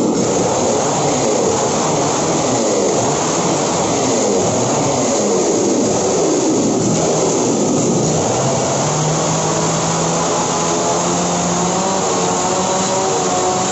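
Large Stihl two-stroke chainsaw revving, its pitch rising and falling repeatedly, then from about eight seconds in held at a steady high pitch as its hard-material chain cuts into a plastered brick wall.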